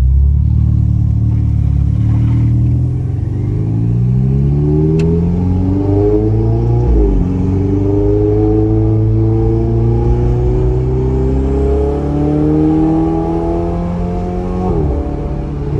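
Ferrari 488 GTB's twin-turbo V8 with an Akrapovic exhaust, heard from inside the cabin while accelerating away. The engine note climbs steadily and drops sharply at an upshift about seven seconds in, then climbs again and shifts once more near the end.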